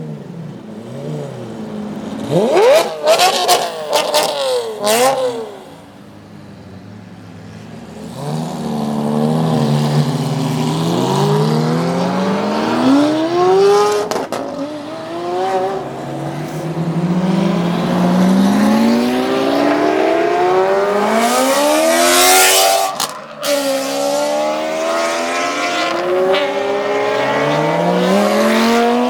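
Supercar exhausts, Lamborghinis and Ferraris among them: a few sharp throttle blips a few seconds in, then cars accelerating away one after another, the engine pitch rising again and again. A loud burst of noise comes about two-thirds of the way through.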